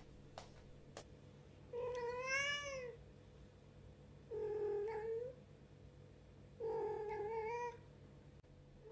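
Domestic cat meowing three times: three drawn-out meows, each about a second long and a second or so apart, the first rising and falling in pitch.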